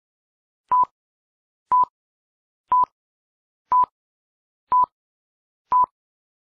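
Countdown-leader beeps: a short, pure, single-pitch beep sounding once every second, six times, each starting and stopping abruptly, marking the count down to programme start.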